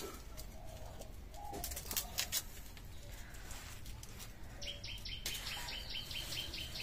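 Faint birdsong: a rapid run of high, evenly repeated chirps, about five a second, starting past halfway, with a few faint clicks earlier.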